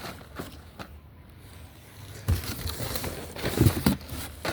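Scattered knocks, clicks and light rustling as boxed fireworks and sparkler packs are handled and set into a storage box, with a few louder thumps in the second half.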